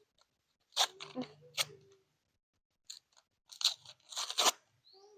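Stiff plastic blister packaging of a Tip-X correction product crackling and crunching in short bursts as it is pried open by hand: a few bursts around one second in and a denser cluster near four seconds.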